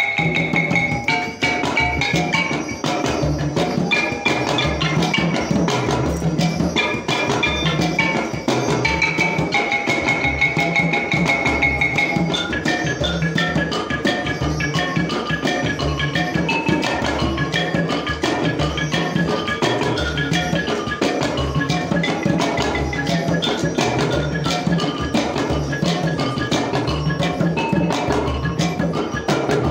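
Percussion music: drums beating a steady pattern that repeats about once a second, under a bright bell-like melodic line that carries sustained notes for the first twelve seconds or so.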